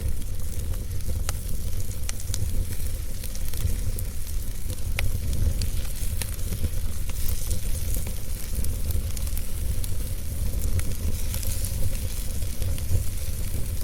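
Wood fire burning with a steady hiss and scattered sharp pops and crackles, over a low rumble.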